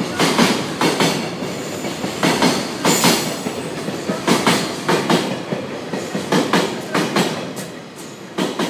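Freight train's container wagons rolling past, the wheels clacking over rail joints in quick clusters over a steady rolling rumble. The clacks stop as the last wagons pass near the end, and the sound fades away.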